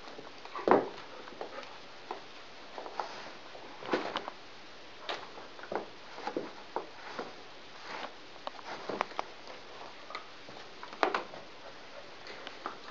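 A border collie and a golden retriever puppy tussling over a plastic frisbee: irregular clacks, taps and scuffles of teeth and paws on the plastic disc. The loudest knocks come about a second in and again late on.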